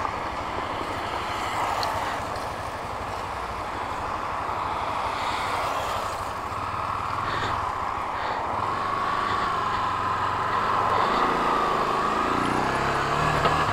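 Honda CB Twister 250 single-cylinder motorcycle under way, its engine running beneath steady wind and road rush on the rider's microphone. The engine note climbs near the end.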